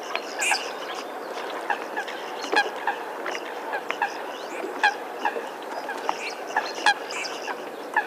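A flock of red-crested pochards calling: many short calls, several a second and overlapping, with a few louder ones standing out, over a steady hiss.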